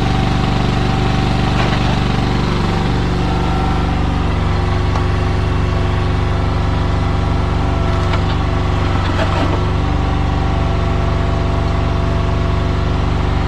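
Yanmar excavator's diesel engine running steadily, with a few faint knocks from the work about two-thirds of the way in.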